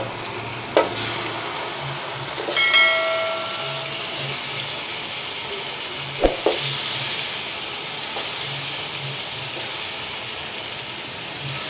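Marinated chicken pieces sizzling in hot oil in a metal kadhai as they are laid in, with a few sharp knocks against the pan and a brief metallic ring about three seconds in.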